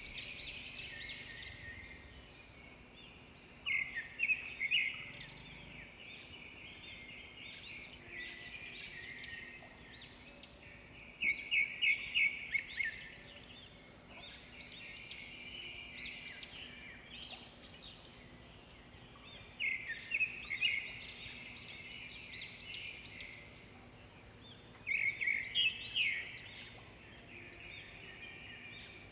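Wild birds chirping and calling in a continuous high chatter, broken by four louder bursts of quick repeated notes spread through the stretch.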